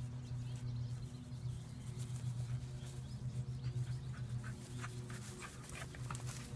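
A dog fetching a toy: scattered light clicks and patters of paws and toy, more of them in the second half, over a steady low hum.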